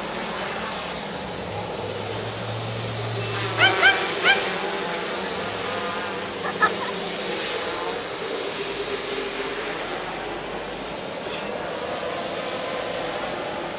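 450mm quadcopter's electric motors and propellers buzzing steadily in flight. A dog barks three times in quick succession a few seconds in, and once more a little later.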